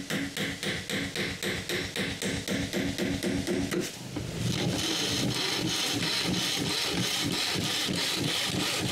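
A hand tool working a wooden molding in quick, even back-and-forth strokes, about five a second. After about four seconds it gives way to a steadier, denser scraping.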